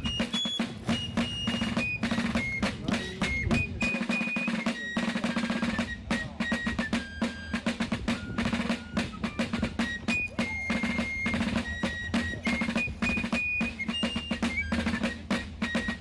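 Fife and drum music: a high, single-line fife melody over rapid snare drumming.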